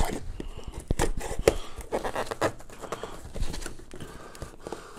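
Cardboard packaging being handled on a tabletop: scattered taps, knocks and rustles at irregular intervals.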